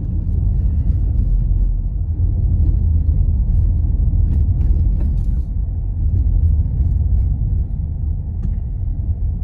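Steady low rumble of a vehicle driving on a plowed, snowy road, heard from inside the cabin, with a few faint ticks scattered through it.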